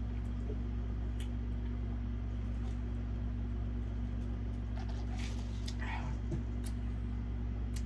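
Faint mouth and chewing sounds, a few soft clicks and two brief smacks, over a steady low hum.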